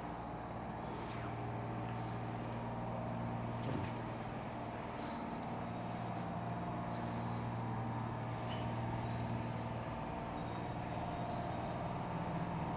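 Steady low mechanical hum, like a motor vehicle engine running, with a few faint clicks.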